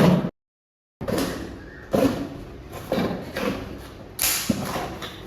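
A knife cutting open a cardboard earbud box: a few sharp knocks and scraping, with a hissy scrape about four seconds in, after a brief moment of dead silence.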